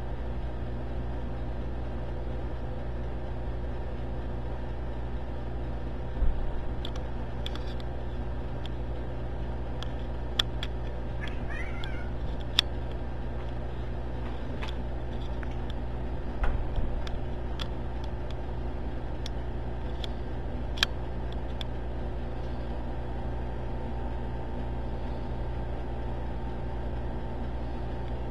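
Two domestic cats play-fighting, heard as scattered thumps and sharp clicks, with one short wavering cat call near the middle. A steady low hum runs underneath.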